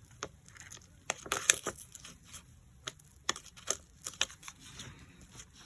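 Velcro dots and their backing sheet being handled and crinkled: irregular sharp clicks and crackles.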